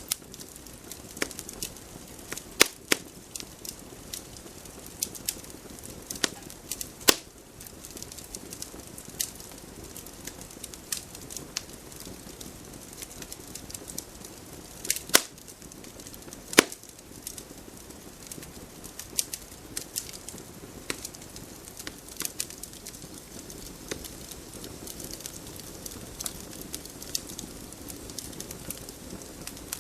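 Campfire burning, with wood crackling and popping in sharp, irregular snaps over a steady low rush of flame.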